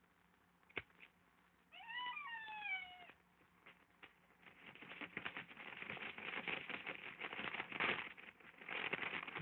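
Cartoon sound effects: about two seconds in, a brief wailing, meow-like cry of several tones sliding down in pitch together. Then, from about four seconds, a dense, rapid fluttering of clicks that grows louder as the swarm of bats flaps around.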